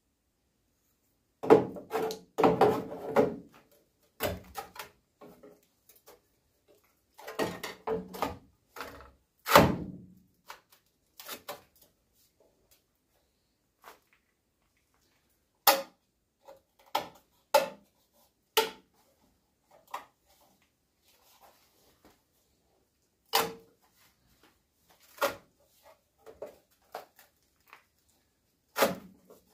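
Irregular knocks and clatter of tools and sheet-metal parts being handled. A cluster comes in the first few seconds and again a little later, then single knocks spaced a second or two apart.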